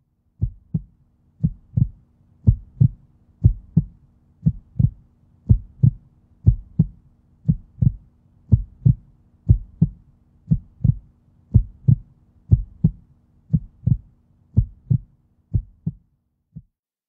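Heartbeat sound effect in a film soundtrack: paired low thumps, lub-dub, about one beat a second, over a faint steady hum. It stops about a second before the end.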